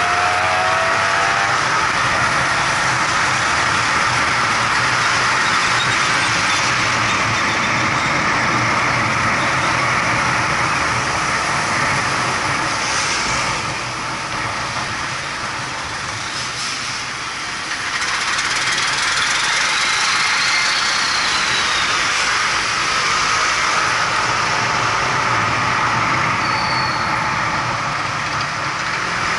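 Vehicle travelling through city traffic: a steady rush of engine, tyre and road noise that eases off for a few seconds about halfway through as it slows, then builds again.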